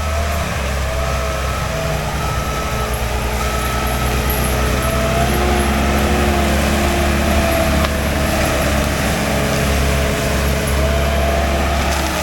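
Skid steer with a forestry mulcher running steadily: a heavy engine drone with a wavering whine that rises and falls in pitch.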